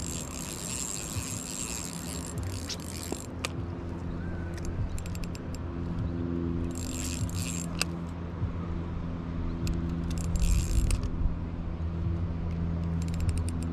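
Spinning reel being cranked in several short spells, a dry whirring hiss, as a hooked rainbow trout is brought in to the net, with a few sharp clicks. A steady low hum runs underneath from about four seconds in.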